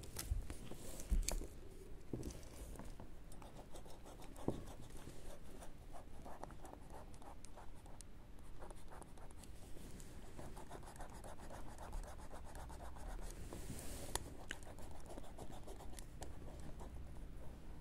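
Pen nib scratching across paper as ink lines are drawn, with many short ticks. Two louder knocks come through, about a second in and again about four and a half seconds in.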